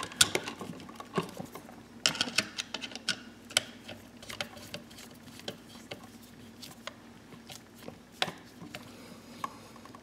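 Screwdriver turning the terminal screw on a plastic wall receptacle to clamp the neutral wire, with irregular small clicks and scrapes of metal on the screw and the outlet being handled. The clicks come thickest a couple of seconds in, with a few sharper single ones later.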